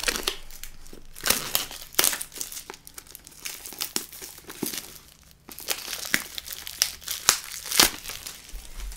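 Clear plastic shrink-wrap being torn and peeled off a cardboard card-deck box, crinkling and crackling irregularly, with a quieter moment about halfway through.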